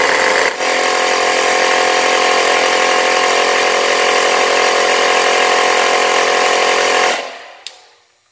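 Built-in 120 PSI air compressor of a Stanley FatMax 700 A jump starter running steadily while inflating a car tire, then switched off about seven seconds in and dying away over about a second.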